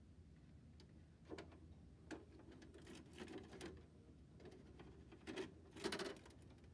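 Faint clicks and short rattles from a JVC VCR being handled and its buttons pressed, a few single clicks and then a louder short burst of clicking near the end.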